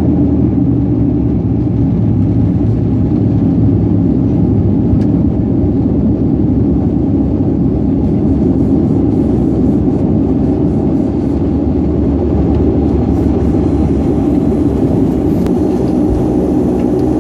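ATR 72 turboprop engine and its six-blade propeller running steadily, a loud, even drone heard from inside the passenger cabin next to the engine.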